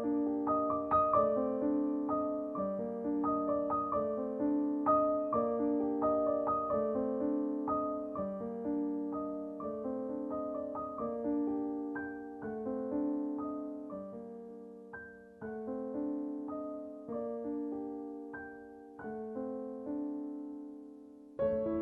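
Soft solo piano background music: a slow, gentle melody over sustained chords, each note struck and fading, with the phrase growing quieter toward the end.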